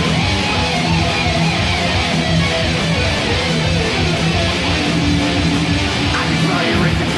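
Instrumental passage of a thrash metal song: distorted electric guitars riffing over bass, loud and dense without a break.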